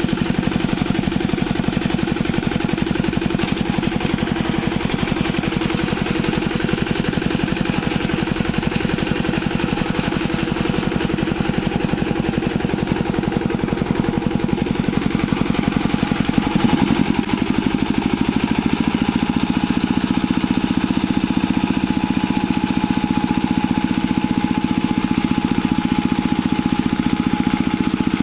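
Single-cylinder diesel engine of a two-wheel hand tractor running steadily with an even, rapid chug. Its note wavers and changes partway through, then runs steady again.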